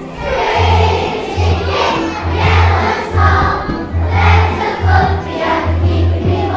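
A large group of young schoolchildren singing a song together over backing music, with a bass note pulsing on the beat.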